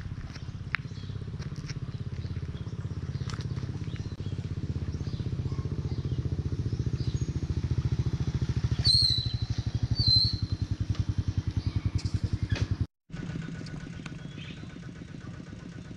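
A small engine idling nearby with a steady rapid low pulse, growing louder toward the middle. Two short high chirps come partway through. The sound drops out for a moment and comes back quieter.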